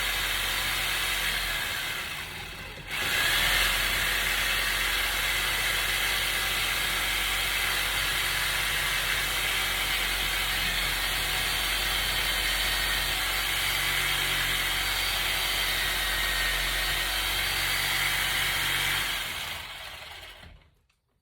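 A power tool running steadily. It eases off about two seconds in, starts up again sharply, and winds down near the end.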